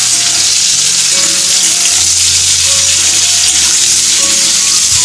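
Sliced bitter gourd sizzling steadily as it fries in hot mustard oil in a kadhai, stirred with a spatula.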